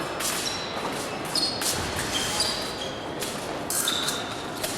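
Épée blades clashing during a bout: a string of sharp metallic clinks, several of them ringing briefly at a high pitch.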